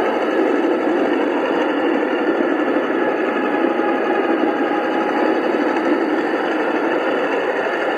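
A 5-inch gauge ride-on garden railway train running along its track: a steady, even rumble of wheels on rails, with a faint whine that drifts slightly in pitch.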